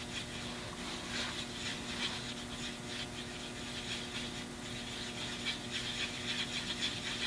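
Paintbrush mixing acrylic paint on a palette: soft, irregular scratchy brushing strokes, over a faint steady hum.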